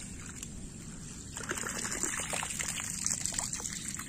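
Shallow floodwater trickling and splashing, with a burst of small splashes starting about a second and a half in and lasting about two seconds.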